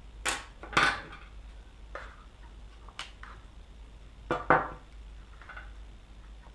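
Hand tools knocking and clinking against a glass tabletop as they are picked up and put down: a couple of sharp clatters within the first second, another around three seconds in, and a loud double knock around four and a half seconds in.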